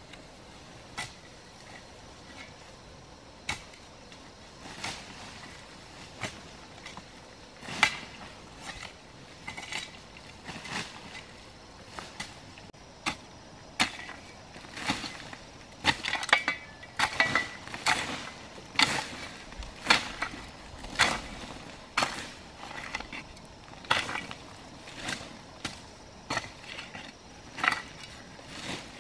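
A long-handled hoe striking into earth and scraping soil loose, in irregular chops about a second or so apart. The strikes come more often and harder in the second half.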